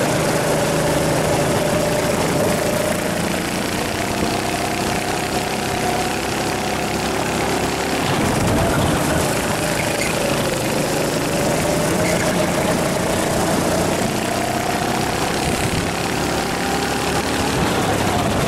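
Rental kart's small engine running under load through a series of corners, its pitch sagging twice as the driver lifts and climbing again as it accelerates, over steady wind rush on the onboard microphone.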